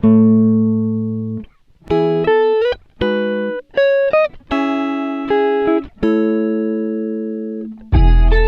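Music: a melody of clean, sustained chord tones that change every half second to a second and a half, with short breaks between phrases. Near the end a fuller, louder passage with deep bass comes in.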